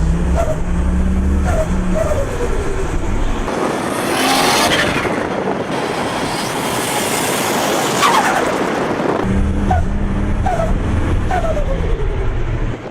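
Turbocharged car engine revving and lifting off. Between revs the turbo lets out short whistles that fall in pitch and two loud rushes of air, about four and eight seconds in, the second with a whistle sliding steeply down: turbo flutter and blow-off.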